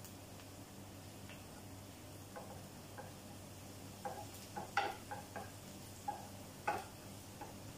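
Wooden spatula stirring onions frying in olive oil in a non-stick frying pan: a run of scrapes and knocks against the pan, mostly from about four seconds in, over a faint sizzle.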